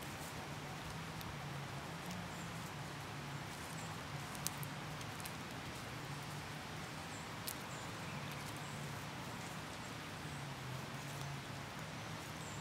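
Outdoor ambience: a steady low hum under faint, scattered high chirps, with two sharp clicks, one about four and a half seconds in and one about three seconds later.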